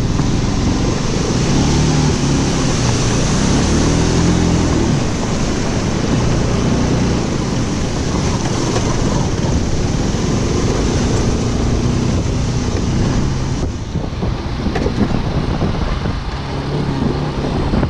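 Bajaj Pulsar RS200 single-cylinder engine running under way, its revs rising and falling, under heavy wind noise on the microphone. Near the end there are scattered knocks and rattles.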